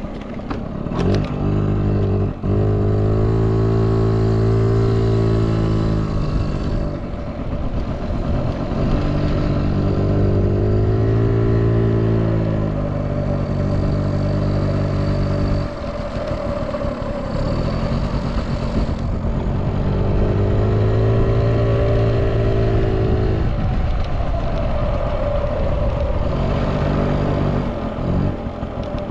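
Yamaha Passol D S50D's 50cc two-stroke single-cylinder engine running, taken up to higher revs and held four times for a few seconds each, dropping back in between. It runs evenly with no abnormal noise, a sound engine.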